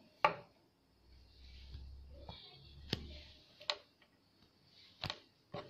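Small scissors snipping along the edge of a freshly sewn zipper: about five sharp, irregular clicks.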